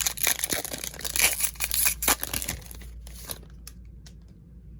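A trading-card pack wrapper being torn open and crinkled. It stops about three and a half seconds in, leaving a few faint ticks.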